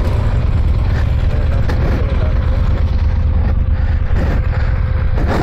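Adventure motorcycle ridden along a rough dirt track: the engine runs steadily at low speed under a loud low rumble, with frequent small knocks and rattles.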